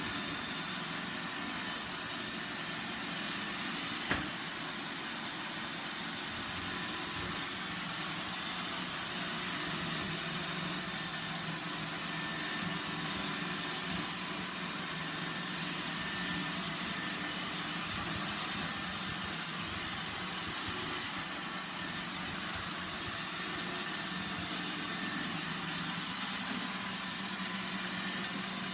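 iRobot Roomba 960 robot vacuum running: a steady motor whir with brush and suction hiss, with one sharp knock about four seconds in.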